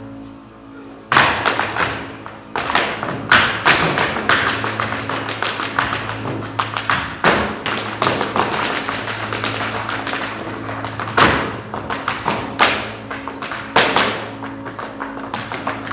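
Dancers' feet tapping and stamping on a stage floor in fast rhythmic clusters, over a low sustained musical drone.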